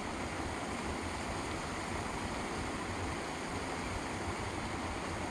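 Steady, even rushing outdoor background noise with no distinct splashes or clicks.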